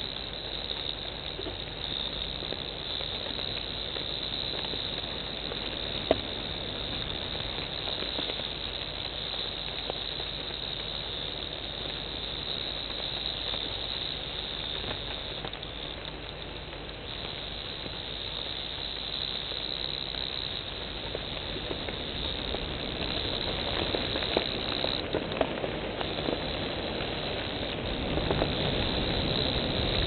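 Steady high-pitched chorus of insects trilling in the bush, with a few sharp clicks, and a louder rumble of low noise over the last few seconds.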